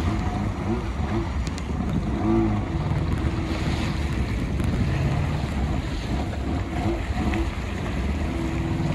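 Jet ski engines idling on choppy sea, a steady low hum under wind buffeting the microphone and water splashing against the hulls.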